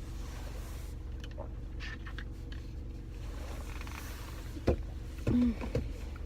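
Steady low hum of a car heard from inside the cabin, with a few faint clicks. Near the end comes a sharp click, then a brief low vocal sound.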